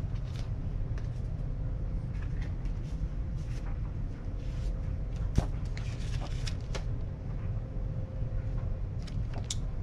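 Scattered light clicks and knocks of things being handled, with one sharper click about halfway through, over a steady low rumble.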